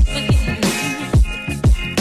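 Electronic hip-hop-style background music with a steady beat of deep bass-drum hits that drop in pitch.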